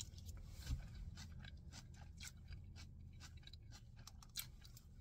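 Faint chewing of a mouthful of coleslaw: irregular soft crunches of shredded raw cabbage, over a low steady hum.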